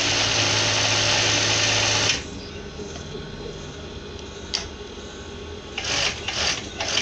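Industrial overdeck (coverstitch) sewing machine running steadily at speed for about two seconds, then stopping abruptly. A single click follows a couple of seconds later, and a few short bursts of sound come near the end.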